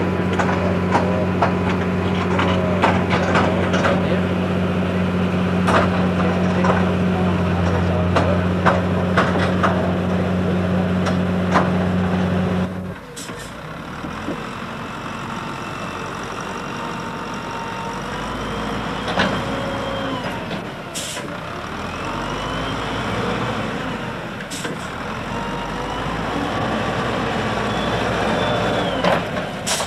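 A steady low hum with scattered crackles, then, about thirteen seconds in, a Volvo BM wheel loader working: a low diesel engine rumble with a whine that rises and falls several times.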